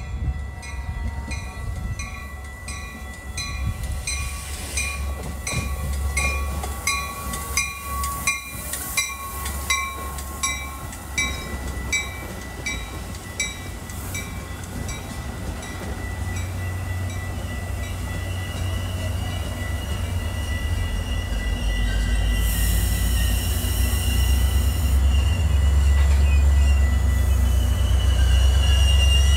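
Metra push-pull commuter train running past, bilevel coaches first and its diesel locomotive at the rear. For the first twelve seconds or so a bell rings about one and a half strokes a second. Then wheel rumble and a high wheel squeal build, and the locomotive's low diesel rumble is loudest near the end.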